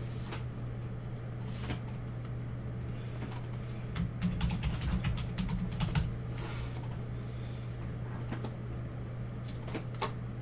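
Scattered clicks from a computer keyboard and mouse, with a cluster of louder low knocks about four to six seconds in, over a steady low hum.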